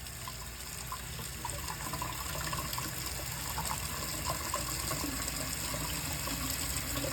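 Water running from a faucet in a steady flow, with a constant low rumble underneath that builds slightly over the first couple of seconds: the loud noise that comes when this faucet is turned on.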